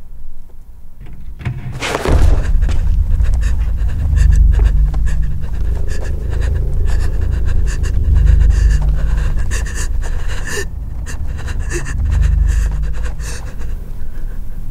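A frightened woman panting hard and fast, with keys jangling in her hand. A loud thud about two seconds in, then a deep low rumble under the breathing.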